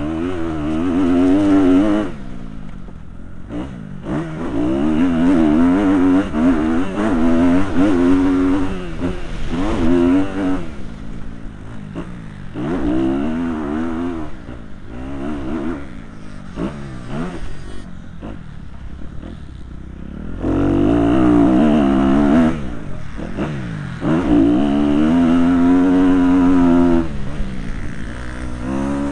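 Motocross bike engine heard from the rider's helmet camera, revving hard in repeated spells of throttle, its pitch climbing in short steps and falling back between them as the rider opens and closes the throttle around the track.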